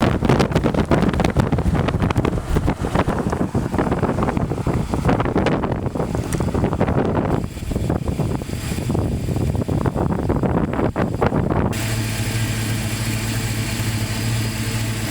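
Strong wind buffeting the microphone, a loud rough rush with gusts. About three-quarters of the way through it cuts abruptly to a steady low hum.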